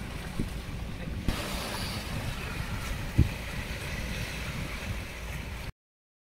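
Sea waves washing against a rocky seawall, with wind rumbling on the microphone and a couple of faint knocks. The sound cuts out briefly near the end.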